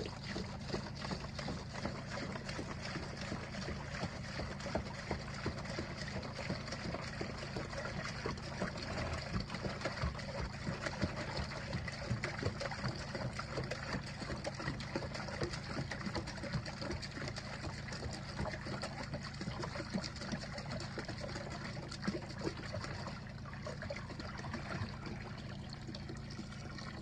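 Water pouring steadily from a large plastic jug into a tub.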